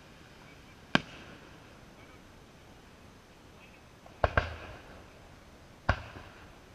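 Aerial firework shells bursting with sharp bangs: one about a second in, a quick pair a little after four seconds, and another near six seconds, each dying away quickly.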